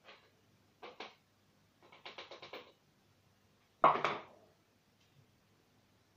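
Light clatter of small kitchen utensils on plastic: a spoon and a small plastic sieve knocking against a dish and the tabletop. A couple of clicks, then a quick run of rapid taps, then one louder knock about four seconds in.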